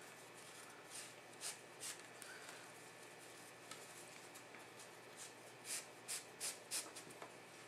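Rope being pulled and slid through a monkey's fist knot as it is tightened strand by strand: faint, short rustling swishes, a couple about a second or two in and a quick run of four or five near the end.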